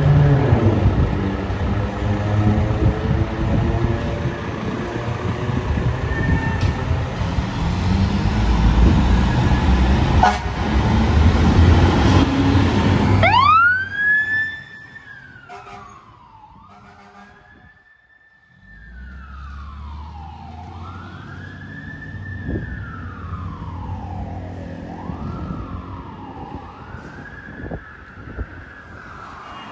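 A 2002 rear-mount fire ladder truck's diesel engine runs loudly as the rig pulls out. About 13 seconds in, its Federal Signal PA300 electronic siren starts with a quick rise to a high pitch and goes into a slow wail, rising and falling every few seconds and growing fainter as the truck drives off.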